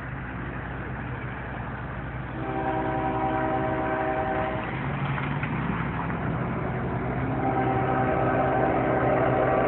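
Nathan K5HL five-chime air horn on a CSX GE ES40DC locomotive sounding two long chords, the first about two and a half seconds in and the second from about seven and a half seconds on, over the steady drone of the approaching diesel locomotive.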